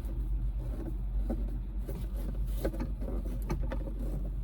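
A steady low hum with a few scattered light clicks and knocks, about three of them clearly heard.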